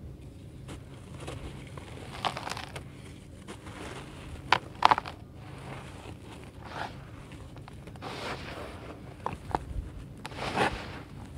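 Hands scooping dry, powdery red dirt and letting it pour back onto the pile in a tub, gritty crunching and hissing with each handful, in several separate bursts.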